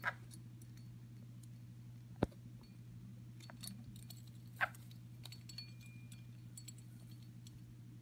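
Parrot pecking at and knocking a small metal bell toy hanging from its rope perch: three sharp clinks, near the start, about two seconds in and about halfway, with fainter ticks between, over a steady low hum.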